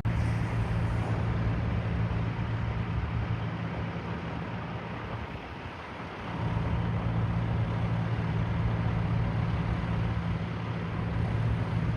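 Heavy vehicle engine running steadily with a low hum. The hum fades briefly about halfway through, then comes back.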